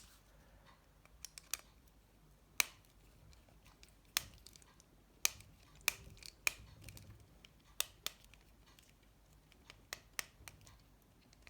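Sharp, irregular clicks and taps of a small screwdriver and plastic phone parts being handled during the reassembly of a Nokia 7373 mobile phone, about fifteen at uneven intervals.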